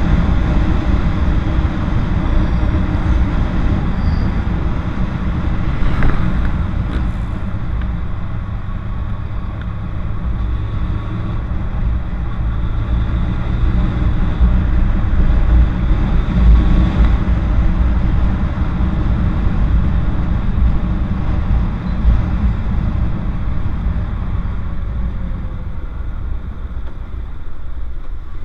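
Kawasaki Ninja sport motorcycle under way: engine running at cruising speed beneath heavy wind rush on the bike-mounted microphone, with a short click about six seconds in. The sound eases off near the end.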